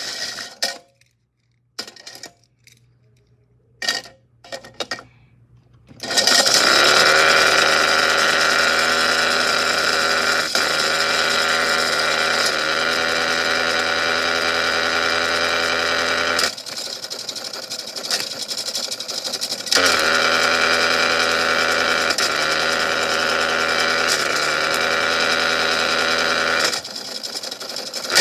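Small electric motor of a toy washing machine running with a steady whine that rises as it spins up about six seconds in. It drops out for a few seconds around the middle, starts up again, and stops near the end. A few clicks come before it starts.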